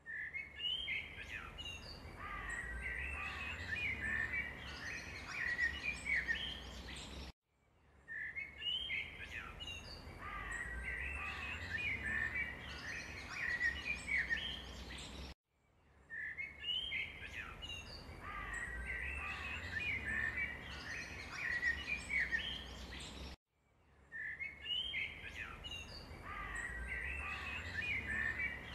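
Birds chirping and twittering in quick, busy phrases over a low background rumble. The same stretch of about eight seconds plays over and over, breaking off into a moment of silence each time it restarts: a looped recording of bird song.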